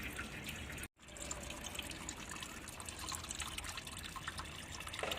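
Old automatic transmission fluid dripping and trickling from the loosened oil pan, many small irregular drips over a faint steady trickle. The sound cuts out briefly about a second in.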